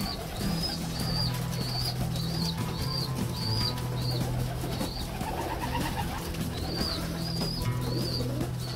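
Young racing pigeons cooing, with a series of short high chirps repeating about twice a second that stops midway and returns near the end.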